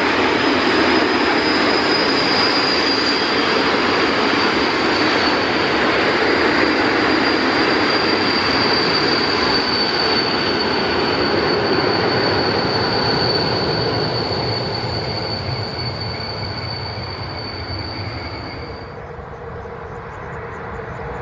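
Freight train of tank wagons rolling past on the rails, with a steady high-pitched wheel squeal over the rumble of the wheels. The noise fades as the train moves away and the squeal stops about 19 seconds in. Near the end another train is heard approaching, growing louder.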